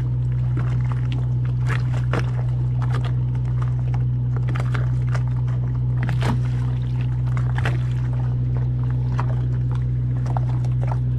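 A large boat's machinery running with a steady low hum, with scattered small clicks and ticks throughout.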